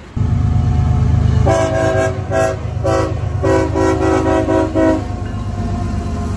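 CSX diesel freight locomotive passing close with a deep engine rumble that starts abruptly, and its multi-tone air horn sounding four blasts from about a second and a half in, the last one long.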